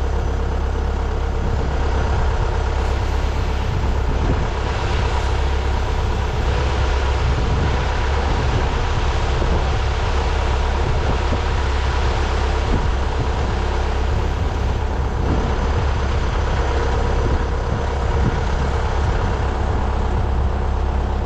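Tractor engine running steadily, a constant low drone with steady higher tones above it.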